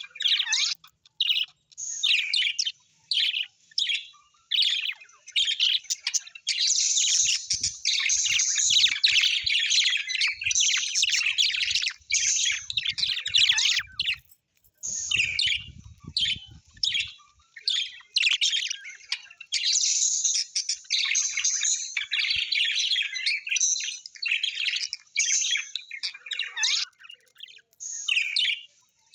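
Several small birds chirping and chattering in rapid, overlapping bursts with short breaks, with faint low thuds in the middle.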